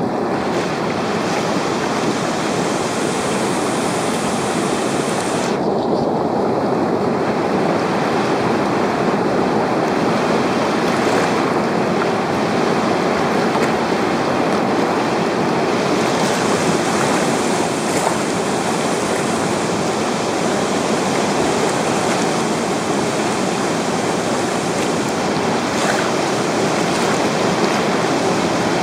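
Steady rushing roar of whitewater rapids, water pouring over and around boulders in a river.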